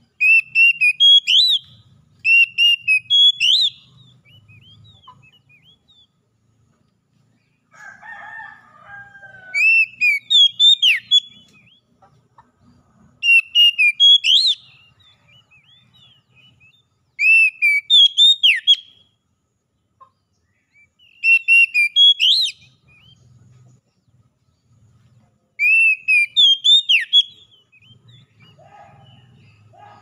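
Oriental magpie-robin singing: loud, clear whistled phrases of about a second and a half, repeated every few seconds with gaps between. A lower, shorter call from another bird comes about eight seconds in and again just before the end.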